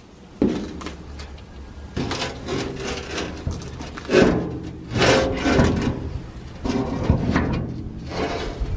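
Heavy rusty steel stump jumper pan of a rotary shredder scraping and knocking against the deck and blade spider as it is turned by hand. The scrapes and clunks come irregularly, several times.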